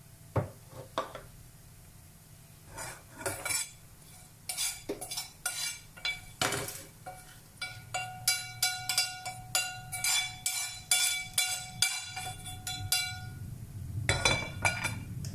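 Slotted steel spoon scraping and tapping roasted spices out of a frying pan into a stainless-steel mixer jar. A few scattered clinks come first, then a quick run of ringing metallic taps through the middle, and a few more taps near the end.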